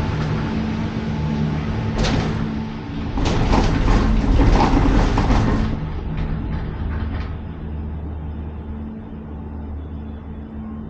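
Cable car gondola in motion: a steady mechanical hum with low tones, and a louder rushing, clattering passage from about two to six seconds in before it settles back to a quieter hum.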